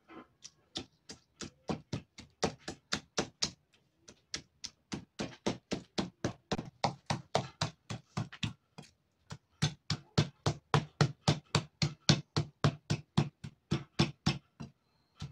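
Large kitchen knife rapidly chopping chiles on a maguey leaf over a table, a steady run of knocks several a second, with brief pauses about four and nine seconds in.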